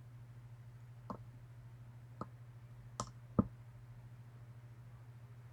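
Light metallic clicks of a lock pick probing and setting the pin stacks of a Medeco M3 cam lock: four short clicks about a second apart, the fourth the loudest, and a sharper click right at the end.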